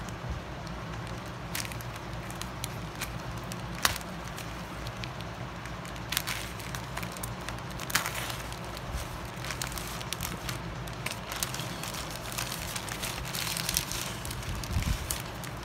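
Plastic courier mailer bag being cut open and pulled apart by hand: crinkling, crackling plastic with scattered sharp clicks, busiest near the end as the bag is crumpled, over a steady low hum.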